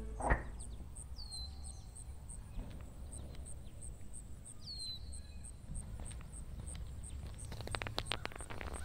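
Outdoor suburban ambience: a bird chirps twice over a steady low background rumble, after a short sharp sound right at the start. Near the end come footsteps on pavement.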